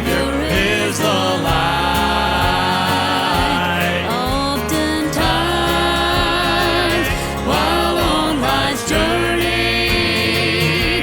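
Gospel song: singing voices with vibrato on long held notes over steady instrumental accompaniment.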